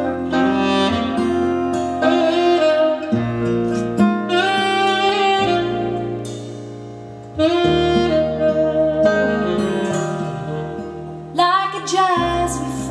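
Instrumental music led by a saxophone melody over a bass line, the introduction of a slow song, played back over a hi-fi amplifier and speakers.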